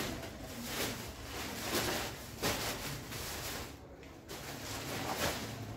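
Rustling and handling of plastic-packaged toys, with several louder crinkles among a steady rustle; the sound cuts off abruptly near the end.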